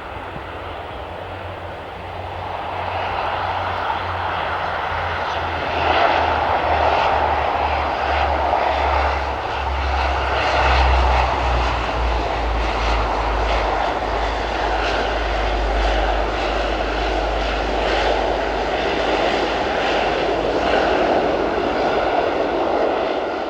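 An airliner's jet engines running at high power, a loud roar with a deep rumble. It swells about two seconds in and again about six seconds in, then holds with a crackling texture.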